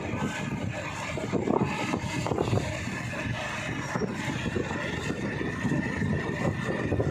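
Running noise of a moving road vehicle, recorded from on board, with wind buffeting the microphone. A faint steady whine comes in about halfway through.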